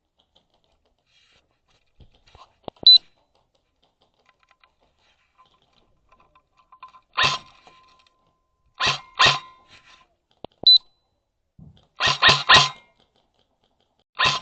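Airsoft replica firing single shots as short sharp pops: one about halfway, a quick pair soon after, a rapid string of three later, and one more at the very end. A few faint clicks and knocks come before the first shot.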